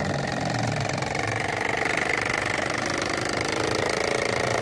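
Battery-powered miniature walking tractor's mock single-cylinder diesel engine chugging steadily with a fast, even knock, as the toy tractor drives itself forward towing its small cart.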